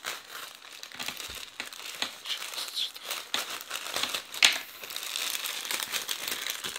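Plastic mailing bag crinkling and rustling as it is torn open by hand and the garment inside is pulled out, a dense run of small crackles. One sharp crackle about four and a half seconds in is the loudest.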